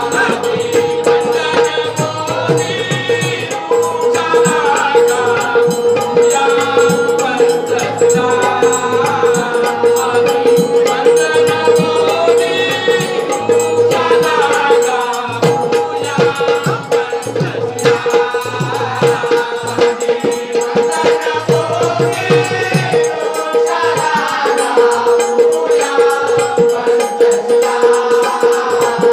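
A Marathi Bhim geet sung to harmonium accompaniment, with a held harmonium tone under the singing voices and steady rhythmic hand percussion.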